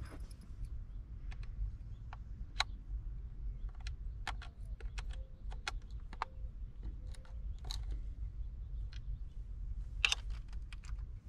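Scattered small plastic clicks and knocks from handling a removed dashboard climate-control panel while fitting a twist-lock indicator bulb into it, with a quick run of clicks and rattles near the end.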